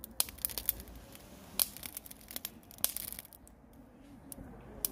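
Fresh charcoal crackling and popping on glowing coals in a metal charcoal stove, with irregular sharp cracks among softer crackle, a few of them much louder. The popping comes from new charcoal heating on the hot coals and throwing sparks.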